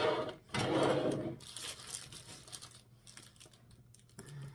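Packaging rustling and crinkling as it is handled, in two loud bursts in the first second and a half, then fainter rustling that dies away.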